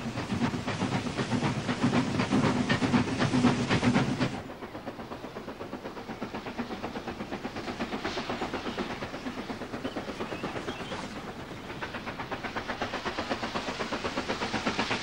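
A train running, heard from inside the carriage, with a fast rhythmic beat. After about four seconds it cuts to a steam locomotive approaching, its exhaust chuffing in quick regular beats with a hiss of steam, growing louder toward the end.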